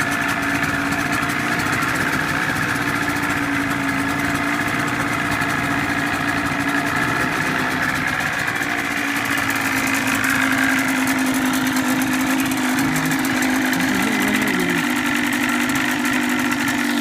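Johnson 25 hp outboard motor idling steadily in neutral, a little louder from about ten seconds in.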